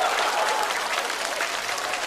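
Studio audience applauding steadily, a crowd of many hands clapping.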